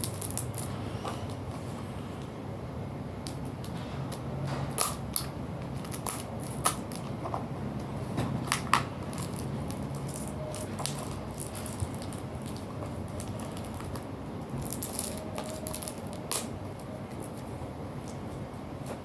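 Hands opening a perfume box and its packaging: scattered clicks, taps and brief rustles of cardboard and plastic, with a few sharper clicks now and then.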